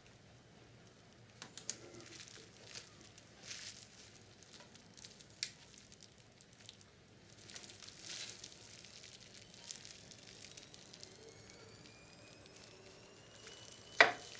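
Small tools clicking and scraping against the plastic parts of a cassette deck's head block as a gear is worked loose, in scattered light clicks. A faint rising squeak comes in the last few seconds, and a sharp click near the end.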